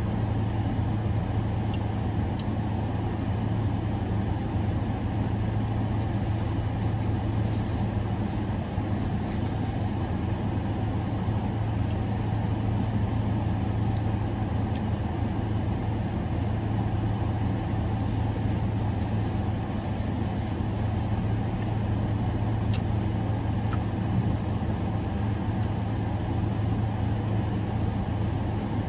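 Steady low hum of a parked car idling, heard from inside the cabin, with a few faint clicks from eating.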